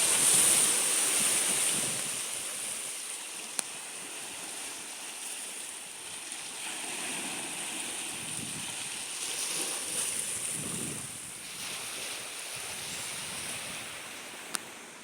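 Surf washing in, with wind on the microphone, swelling and fading in waves; two brief clicks stand out, one a few seconds in and one near the end.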